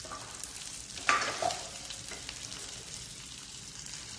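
Onions sizzling in hot oil in a pan as deep-fried bitter gourd (karela) pieces are tipped in from a steel plate, with a brief louder burst of sizzle and clatter about a second in. The pan then sizzles on steadily while the mixture is stirred with a wooden spoon.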